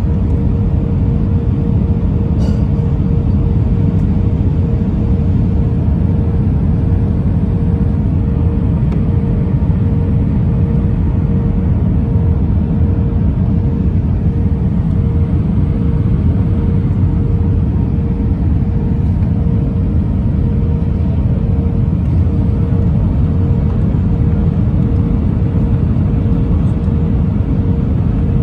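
Cabin noise inside an Airbus A319 on final approach with flaps extended: a loud, steady rumble of engines and airflow, with a steady hum tone under it.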